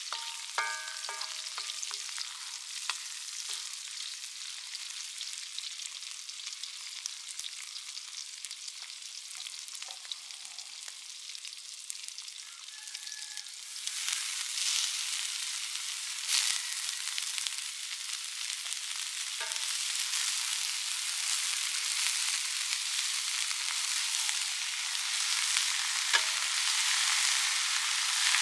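Vegetables and chillies sizzling in an oiled metal wok, stirred with a spatula that scrapes the pan now and then. About halfway through, a basketful of small prawns is tipped in, and the sizzle jumps up and keeps growing louder as they fry and are stirred.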